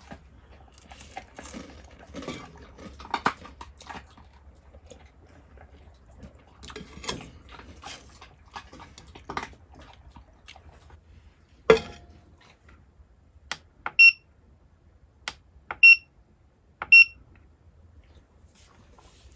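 Portable power station beeping: three short, clear high-pitched beeps over about three seconds as its buttons are pressed. Earlier, soft handling clicks and scrapes and one sharp knock.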